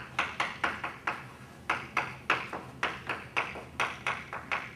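Chalk writing on a blackboard: a quick, irregular run of sharp taps, about three or four a second, as each letter stroke strikes the board.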